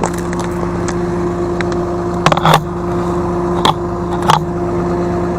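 A vehicle engine running steadily with a constant hum, and a few short knocks or rattles in the second half.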